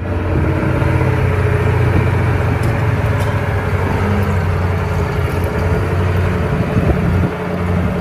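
Caterpillar 988B wheel loader's V8 diesel engine running steadily under load as the machine drives with a heavy marble block on its forks, easing a little about seven seconds in.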